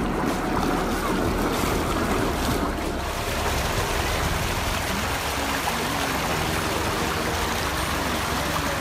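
Shallow water rushing steadily down the textured granite channel of a memorial fountain, a continuous even splashing hiss.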